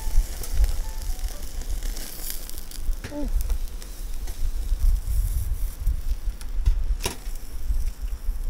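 Meat sizzling on a camp grill over a fire, with a short falling squeak about three seconds in and a sharp click about seven seconds in.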